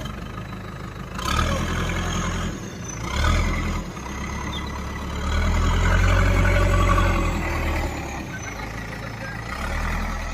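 Diesel engine of a Caterpillar construction machine running and rising in revs in several surges: briefly about a second in and near three seconds, a longer one from about five to seven and a half seconds, and again near the end.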